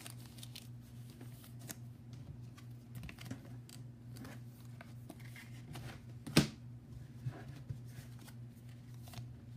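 Baseball cards being handled and flipped through by hand: faint scattered flicks and slides, with one sharper snap about six seconds in, over a steady low hum.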